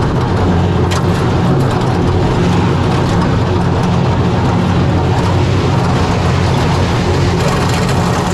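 Steady rumble and rushing noise of a kiddie roller coaster car running along its track at speed, loud and unbroken throughout.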